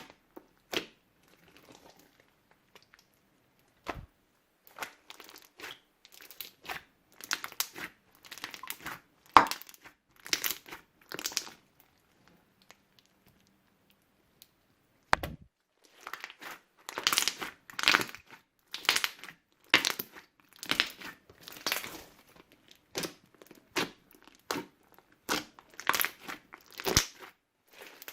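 Slime being squished and mixed by hand, with irregular sticky pops and crackles as trapped air bursts. The sound stops for a few seconds about halfway through, then comes back busier.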